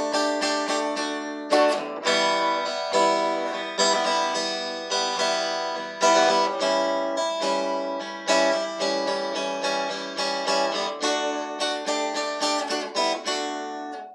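Acoustic guitar playing an instrumental passage of picked and strummed chords, with a fresh attack about once a second. It is the instrumental close of the song.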